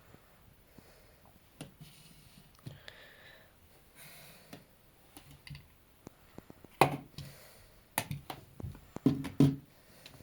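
Scattered clicks and light knocks of objects being handled, growing into a cluster of louder thuds in the last few seconds.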